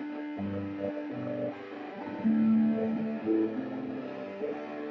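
Electric guitar played through effects pedals: a shifting run of sustained notes. One note a little after two seconds in is louder than the rest.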